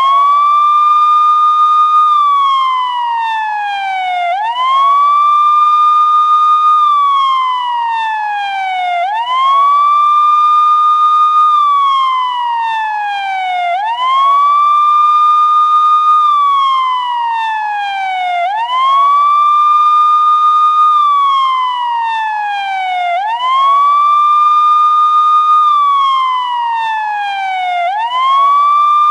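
Police siren sounding in wail mode: a single tone rises quickly, holds high for about a second, then falls slowly, the cycle repeating evenly about every four and a half seconds, six times over.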